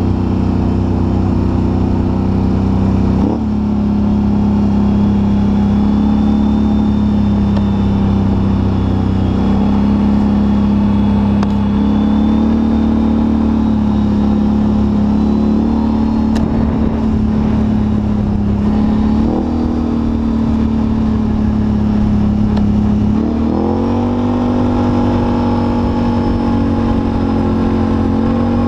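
ATV engine running at speed on a gravel road, its note shifting up and down a little with the throttle and climbing as the rider accelerates near the end.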